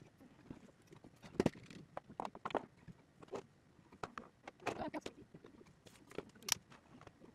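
Irregular light knocks, clicks and rustles of things being picked up and set down on a desk, with a paper towel being handled; the sharpest click comes near the end.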